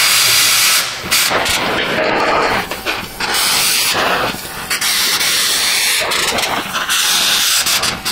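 Oxy-fuel torch flame hissing steadily against the rusted exhaust pipe, with a couple of brief dips.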